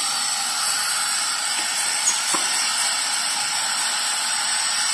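Compressed-air vacuum ejector in a Piab KENOS gripper hissing steadily while it holds six 500 g milk pouches by suction. A few light clicks come around two seconds in.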